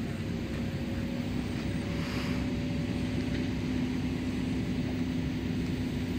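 Fire engine's motor running steadily, a constant drone whose pitch creeps slightly higher, over a low rumble.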